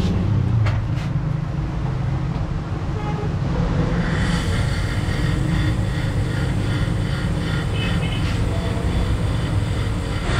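A motor or engine running steadily with a deep hum, joined by more high-pitched noise about four seconds in.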